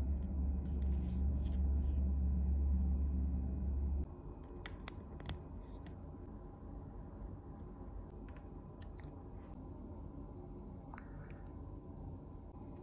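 Small sharp metallic clicks and a brief scrape from a watchmaker's tools on the steel case and movement of a skeleton tourbillon wristwatch, with a faint fast, even ticking throughout. A steady low hum runs underneath for the first four seconds and then stops.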